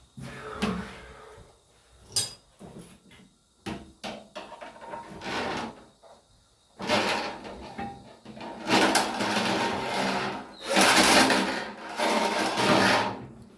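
Drain rod being worked into a blocked toilet drain: scattered knocks and clatters, then from about seven seconds on several longer bouts of harsh scraping, each a second or two long.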